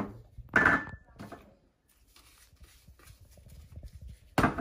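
Small glass spice bowls knocking and clinking during handling: one sharp knock, then a louder clink about half a second in that rings briefly, followed by faint light tapping and rustling.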